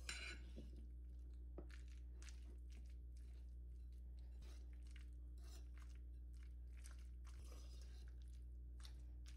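Faint, irregular soft crackles and clicks of a metal fork stirring a thick mix of grated cheese, sour cream and butter in a ceramic bowl.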